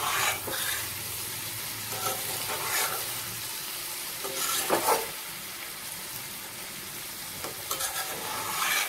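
Pumpkin and potato pieces frying with spices in a kadai, sizzling steadily, while a metal spatula stirs and scrapes through them with a few louder scrapes along the way. This is the sauté (kosha) stage, with the spices being fried into the vegetables.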